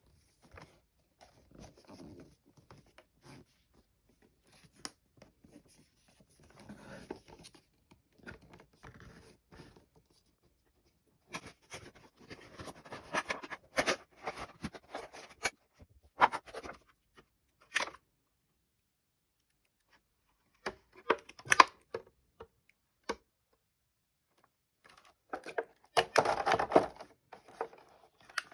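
Action-figure packaging being handled and opened: bursts of rustling and scraping with sharp clicks, broken by short pauses. The busiest handling comes in the middle and near the end.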